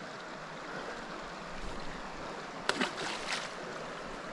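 Creek water running steadily, with a few short splashes between about two and a half and three and a half seconds in as a small rainbow trout is let go from the landing net into the water.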